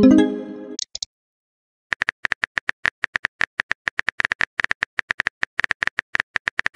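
Texting-app sound effects: a short message-arrival sound at the start, then after a second's pause a long run of rapid, evenly spaced keyboard tap clicks as the next message is typed.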